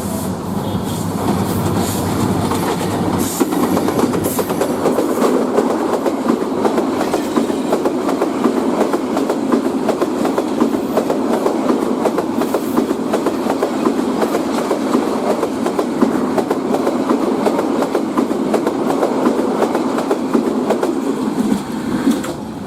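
Lalmoni Express passenger train running past at high speed: a continuous rapid clatter of wheels over the rails. A low hum sounds in the first few seconds, and the clatter grows louder after about four seconds and eases a little near the end.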